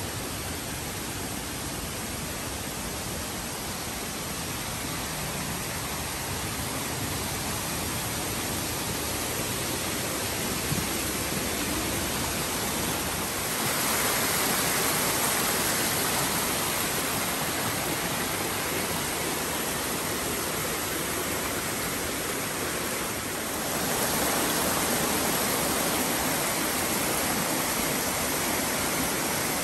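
Forest stream cascading over rock ledges: a steady rush of water that grows louder about halfway through, dips briefly, and swells again about three-quarters of the way in.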